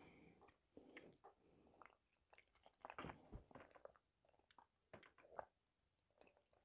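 Very faint mouth sounds close to a clip-on microphone: a few soft chewing clicks, then quiet sips and swallows of water from a glass cup in the second half.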